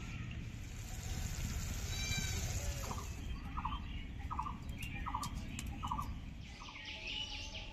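A run of short animal calls, about six in a row roughly every half second, with a brief higher chirping call just before them, over steady outdoor background rumble.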